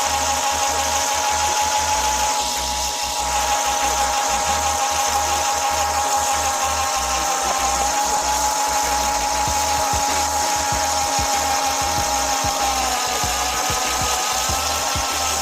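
A small electric motor whining steadily at one high pitch, dipping slightly in pitch near the end.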